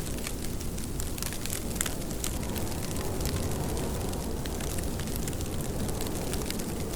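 Steady rain, with many close drops ticking sharply over a continuous low rumble.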